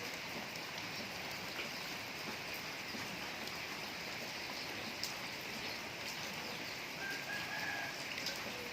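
Steady rain falling, with scattered drops ticking. Near the end a chicken calls once, briefly.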